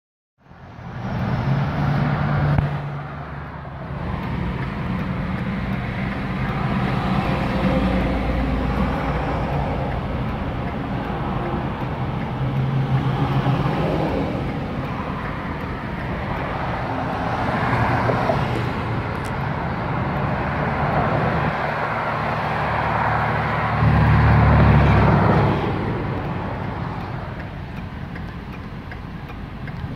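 Truck engine and road noise heard from inside the cab as it pulls through an intersection, with passing traffic. The engine hum swells three times: at about two seconds in, around thirteen seconds and, loudest, around twenty-four seconds.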